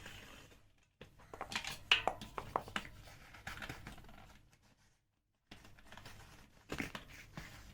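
Bicycle tyre being worked off a carbon rim by hand and with tyre levers: a run of clicks, scrapes and rubbing of rubber and plastic against the rim, the sharpest click about two seconds in.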